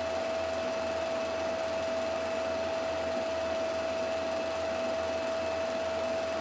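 Film projector running: a steady mechanical whir with a constant hum-like tone through it.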